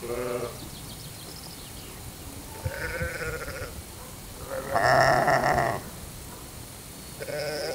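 Lambs bleating: four wavering calls, the loudest and longest about five seconds in.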